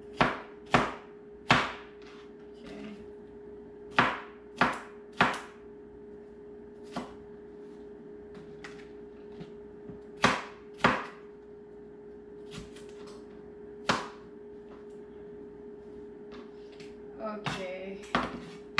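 Kitchen knife chopping on a cutting board: sharp knocks in small groups of two or three, with pauses of a few seconds between, over a faint steady hum.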